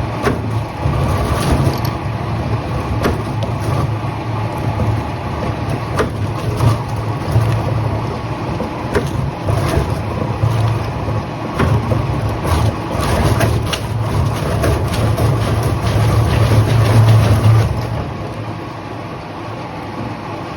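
Heavy machinery running with a steady low drone, with scattered clanks and knocks over it; the drone eases off near the end.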